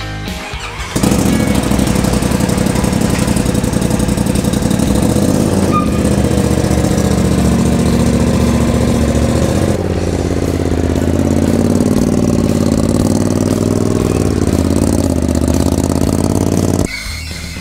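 Side-by-side UTV engine running loud and steady. From about ten seconds in its pitch wavers gently up and down. It cuts out about a second before the end.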